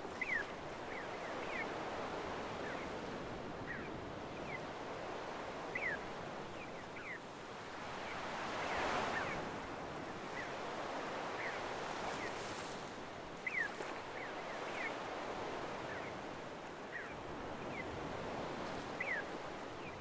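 Small waves washing up and draining back over a sandy beach, a steady surf wash that swells about nine seconds in. Short, high, falling calls of seagulls sound over it about once a second.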